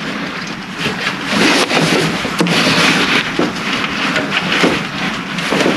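Steady rustling and scraping noise with a few faint clicks, from hands working at the alternator's positive-terminal nut in the engine bay.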